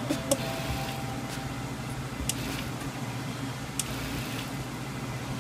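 Steady mechanical hum of a rotary evaporator turning a round-bottom flask in its water bath, with a few faint ticks. A brief falling tone sounds right at the start.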